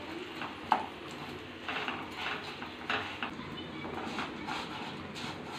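Wooden spatula stirring vermicelli and chopped nuts roasting in ghee in a kadai: irregular scrapes and knocks against the pan, with one sharp knock just under a second in.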